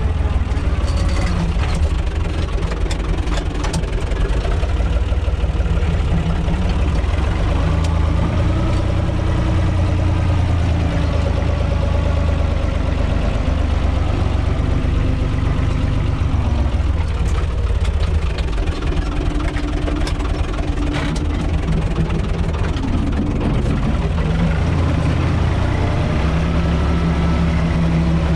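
UTB 445 tractor's diesel engine running steadily under way, heard from inside its cab, its note wavering a little with the load.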